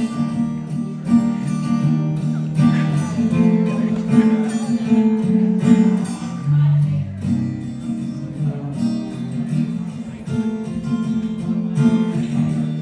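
Acoustic guitar strummed in a steady chord progression, the instrumental intro before the vocal comes in.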